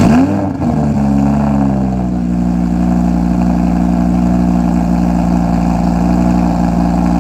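Audi R8's 5.2-litre V10 starting up with a sharp rev flare that rises and falls back over about two seconds, then settling into a steady idle through the exhaust.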